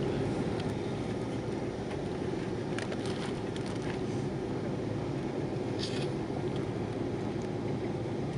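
Steady engine and airflow noise of an Airbus A330-300 heard inside the passenger cabin, an even low rumble and hiss, with a couple of faint clicks from the cabin.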